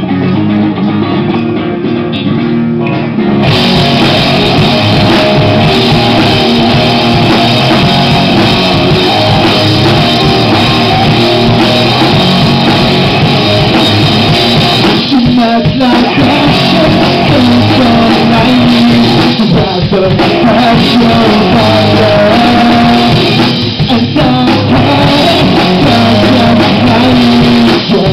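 Live rock band playing a song: an electric guitar alone for the first three seconds or so, then drums, bass and a second guitar come in together at full volume, with a lead vocal over the band.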